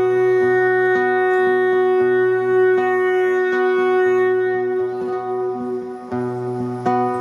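Live music: a long held wind-like note rich in overtones over a low steady drone, with plucked string notes sounding now and then. The low drone drops out for about a second near the end, then returns.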